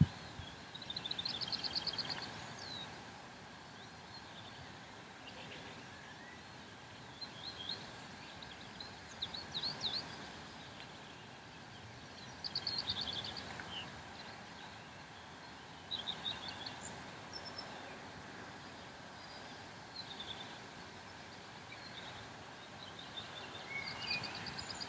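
Songbirds singing short, high trilled phrases every few seconds over a steady open-air background hiss.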